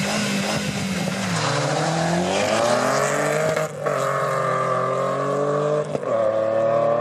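Two cars launch side by side from a standing start: a red Audi S3 8L with its turbocharged 1.8-litre four-cylinder engine, and a black hatchback. Both engines are held at raised revs on the line. About a second in they launch and rise steadily in pitch as the cars pull away. There are two brief gear-change dips, near the middle and near the end.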